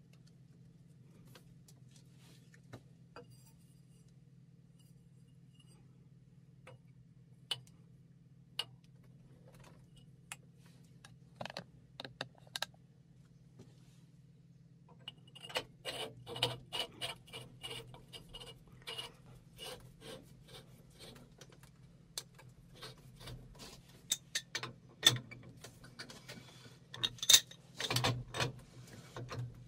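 Steel parts of a hydraulic bottle jack handled and fitted together by hand: a few scattered clicks and clinks, then from about halfway a busy run of metal clicking, scraping and knocking, with the loudest knocks near the end as a pipe wrench is put on the jack. A faint steady hum runs underneath.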